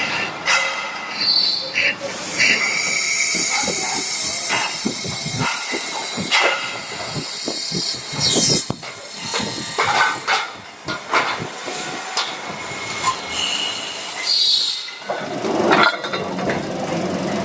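Factory workshop noise of ceiling-fan production: irregular clatter and knocks of metal parts and tools over a steady machine hiss and high whine.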